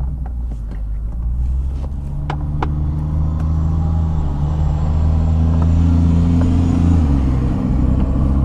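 A motor vehicle engine's low, steady rumble, its pitch shifting slowly, with a few light clicks.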